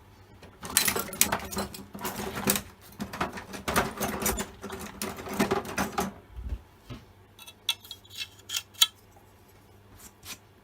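A tool scraping out the blocked oil ways of a chainsaw guide bar in quick rasping strokes for about five seconds, then a few light clicks and taps.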